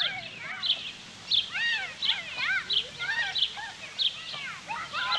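Children playing outdoors, with high-pitched shouts and squeals, while a bird chirps in short repeated notes about once every two-thirds of a second.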